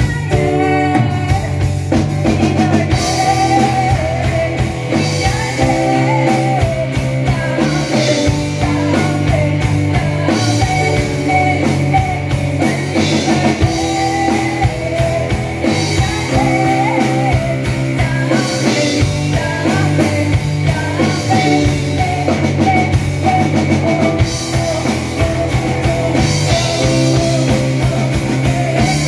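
Live rock band playing a song: a drum kit, electric guitars, an electric bass and piano, with a singer's voice carried over them.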